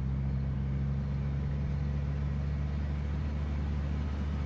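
Steady low drone of a car's engine and cabin noise, heard from inside the car.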